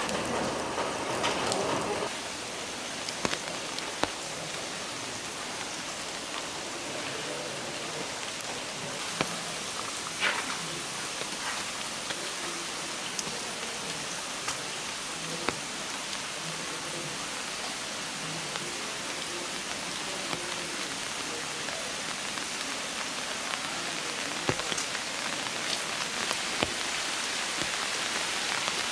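Steady rain falling, with now and then a single louder drop striking.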